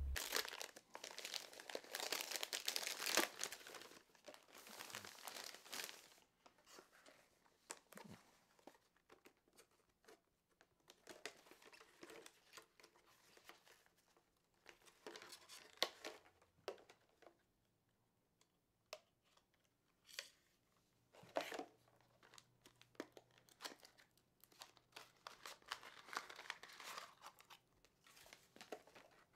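Clear plastic blister packaging being handled and pulled open: crinkling and tearing plastic. It comes in dense bursts for the first few seconds, then as quieter scattered rustles and clicks.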